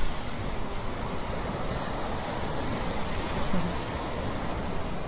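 Steady rushing of sea surf and wind.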